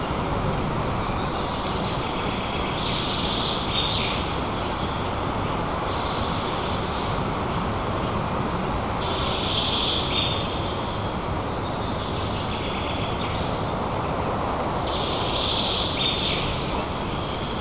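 Steady rushing outdoor noise, with a small songbird singing a short high phrase three times, about every six seconds.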